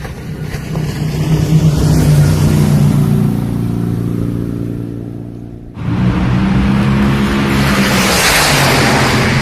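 A motor vehicle engine running, swelling over the first two seconds and then slowly fading. About six seconds in it cuts off abruptly and a second, louder and rougher engine sound takes over, building toward the end.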